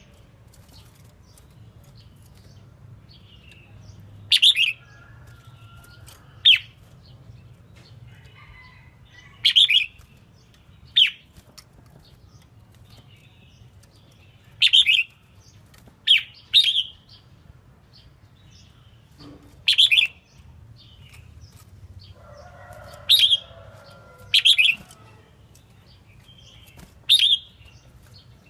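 Red-whiskered bulbul giving short, sharp calls every few seconds, sometimes two in quick succession. A softer, lower warbling phrase comes a little past two-thirds of the way through.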